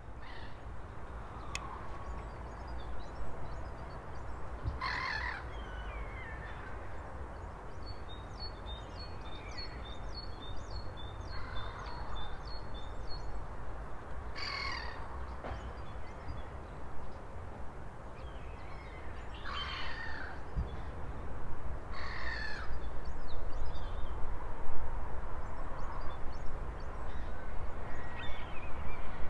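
Outdoor ambience: birds calling, with about five loud calls spread out and a run of small high chirps in the middle, over a steady low rumble that grows louder toward the end.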